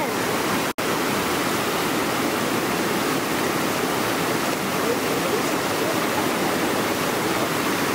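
Whitewater rapids rushing steadily, with the sound cutting out for an instant just under a second in.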